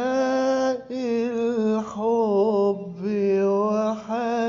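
A man singing an Egyptian Arabic song solo, with no accompaniment heard. He stretches each word into long held notes decorated with small wavering turns, in three or four phrases separated by brief breaths.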